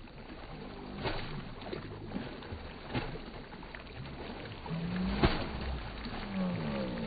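A child swimming, her kicking legs and arm strokes splashing the water, with sharper splashes about one, three and five seconds in, the last the loudest.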